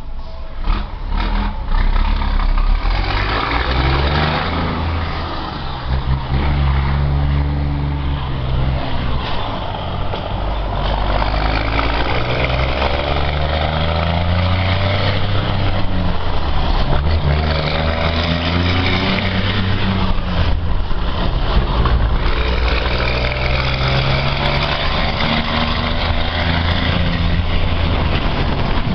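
Scania R420 truck's diesel engine with a straight-through exhaust pulling hard. Its note rises and falls in pitch again and again as it goes up through the gears.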